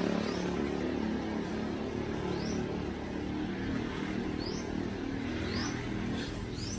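Boat motor running steadily, with several short rising chirps high above it.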